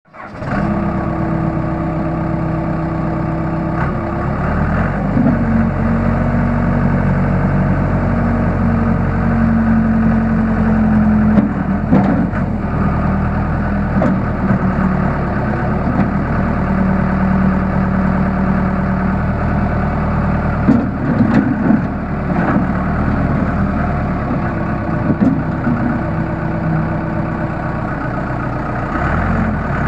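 Case 580L backhoe's four-cylinder diesel engine running, its note shifting a few times, with a few short knocks about 12 and 21 seconds in.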